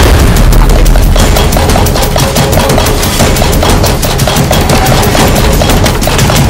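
A pestle pounding rapidly in a stone mortar, many strikes a second in a fast, even run.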